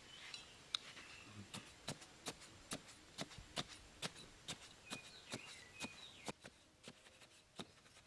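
A blade jabbed repeatedly into sandy soil to dig a small hole: a steady run of sharp, short strokes about two or three a second, trailing off near the end.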